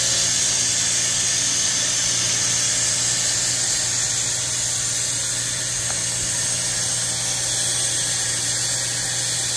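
AC electric feed-water pump running steadily, pumping water into a steam boiler: a constant low hum with a steady high hiss over it.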